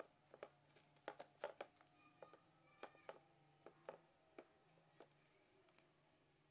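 Faint, irregular clicks and taps of plastic as a hand pushes and handles a toy monster truck on a rug, several a second, stopping shortly before the end.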